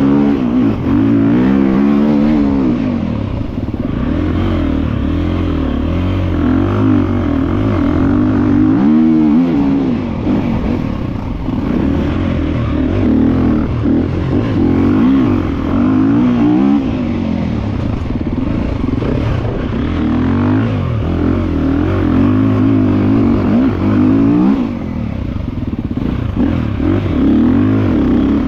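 GasGas EC350F's 350 cc single-cylinder four-stroke engine being ridden hard, its revs climbing and dropping again and again with the throttle.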